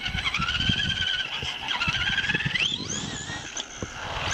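RC buggy's electric motor and gear train whining under throttle. The pitch wavers with speed and climbs sharply about two and a half seconds in as the car speeds up, over a low rumble and knocks from the tyres on pavers.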